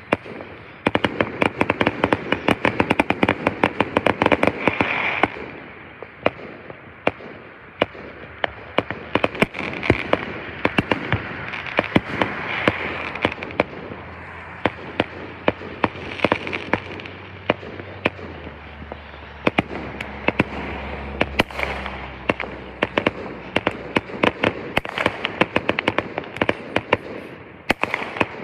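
Fireworks display: a rapid barrage of shell bursts and crackling, densest in the first few seconds, then going on as scattered bangs and crackle.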